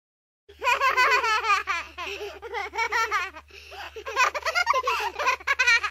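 A small child laughing and giggling in several quick, high-pitched bouts with short pauses, over a steady low hum.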